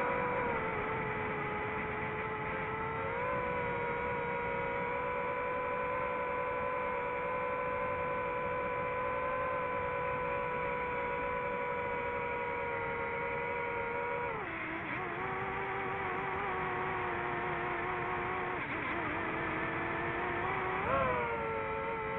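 DJI FPV drone's motors and propellers whining steadily at one pitch. The pitch steps up a little about three seconds in, drops and wavers about two-thirds through, and rises sharply for a moment near the end as the throttle changes.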